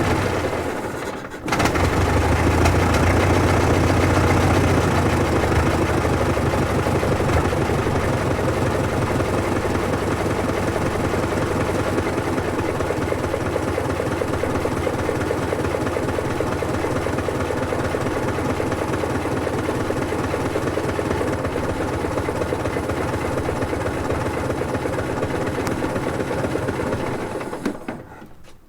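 Ford Model T's four-cylinder engine running with a fast, even firing beat. It drops away briefly about a second in, then runs steadily and fades out near the end.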